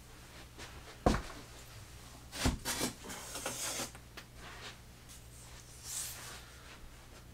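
Thin laser-cut wooden kit sheets being handled: a knock about a second in and another about two and a half seconds in, then wood sliding and rubbing on wood, and a brief swish near the end.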